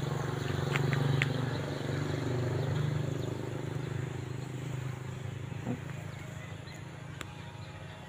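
A low engine hum, loudest in the first few seconds and slowly fading away, with a couple of short high chirps about a second in.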